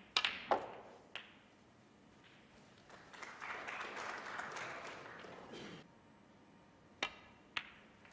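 Sharp clicks of snooker balls: the cue tip striking the cue ball and balls knocking together, a few in the first second and two more about seven seconds in. Between them, a few seconds of audience applause.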